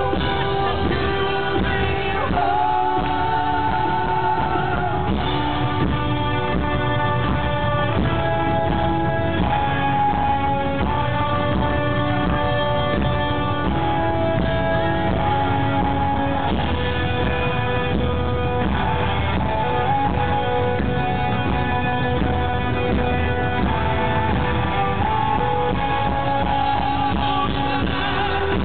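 Live rock music: a male lead singer holding long, sliding notes over guitar and a full band.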